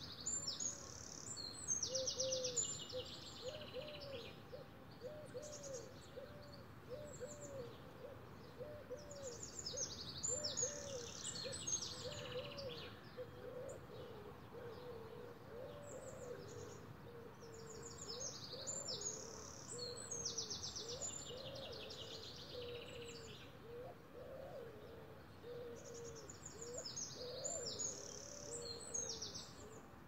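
A stock dove cooing in a long, steady run of low, arched notes, about two a second. Over it a songbird sings short, high, trilling phrases that come back about every eight seconds.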